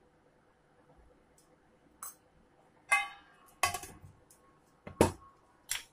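Steel kitchenware knocking and clinking against a steel mixing bowl. After a quiet start come about five short knocks in the second half, one of them with a brief metallic ring.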